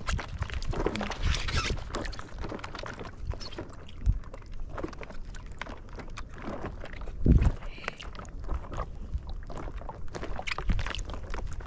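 Water sloshing and splashing around a small boat, with scattered knocks and clicks. A heavier low thump comes about seven seconds in, and more near the end.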